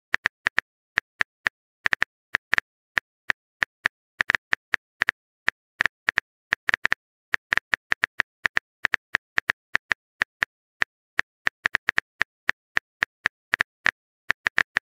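Phone keyboard typing sound effect: a long run of quick, identical clicks at an uneven pace, about four or five a second, as the next text message is typed out.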